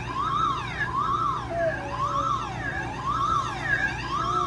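Electronic siren-like wail, rising, holding and falling in pitch about once a second and repeating steadily.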